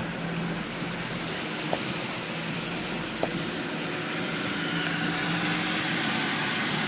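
Pickup truck engine running with a low steady hum under a continuous rushing hiss as the truck wades through deep flood water. Two small clicks come about two and three seconds in.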